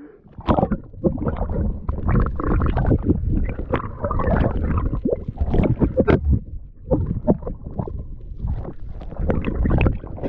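Water sloshing, splashing and gurgling in irregular surges around a head-mounted microphone that dips in and out of the sea beside a jet ski's hull.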